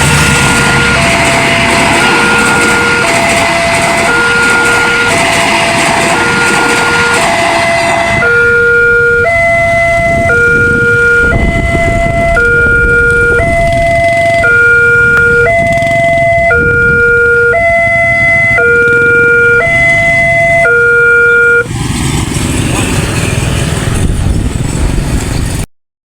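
Railway level-crossing warning siren sounding a two-tone alternating electronic wail, switching between a low and a high tone about every ¾ second. A heavy rushing noise covers it for the first eight seconds or so. The siren cuts off about 22 seconds in, leaving rushing noise.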